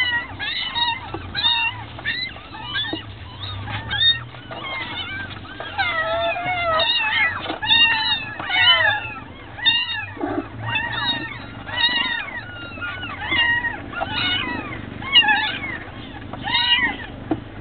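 Young kittens mewing over and over: short, high-pitched cries that rise and fall, several a second, often overlapping.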